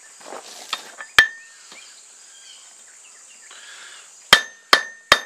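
Blacksmith's hammer striking hot steel rebar on an anvil, each blow ringing on a clear high tone. There is one blow a little over a second in, then three quick blows near the end as the rebar is drawn out square to a point.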